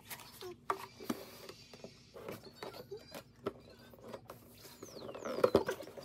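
Gift packaging being handled: light taps and rustles of tissue paper and a cardboard box, then louder paper rustling near the end as a paper shopping bag is opened.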